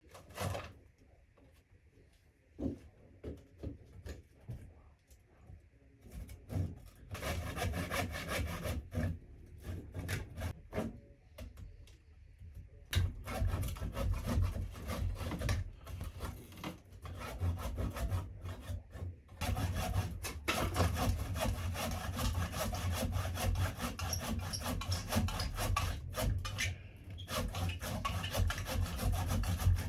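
Handsaw cutting through a wooden log, its teeth rasping in quick back-and-forth strokes. It is sparse and hesitant for the first few seconds, then settles into a steady run of strokes with brief pauses.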